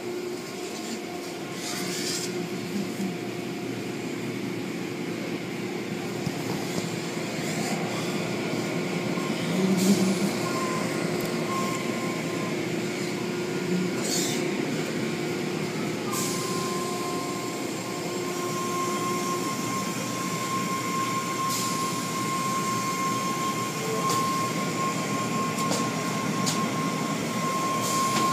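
Car wash machinery running: a steady mechanical rumble and hiss, joined about halfway through by a thin high whine that holds, with a few scattered clicks.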